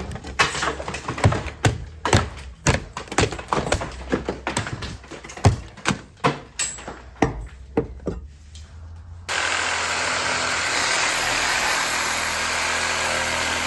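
Demolition work: a quick, irregular run of knocks and crashes, like ceiling material being broken down and falling. About nine seconds in it gives way abruptly to a loud, steady rushing noise.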